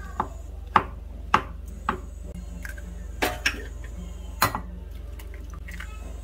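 Kitchen knife chopping button mushrooms on a wooden cutting board, four chops about half a second apart. Then two eggs are tapped and cracked into a bowl, each a quick pair of knocks, over a steady low hum.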